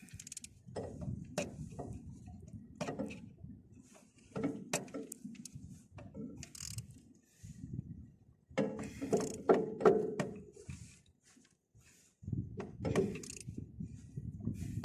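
Irregular metallic clicks, clanks and knocks of hand tools and metal parts being handled while fitting the oil cooler assembly on a bulldozer. The sounds are busiest and loudest about nine to ten seconds in.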